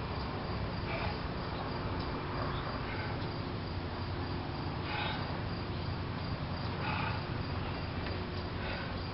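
Outdoor ambience: a steady low hum and noise, with a short chirp or call repeating about every two seconds.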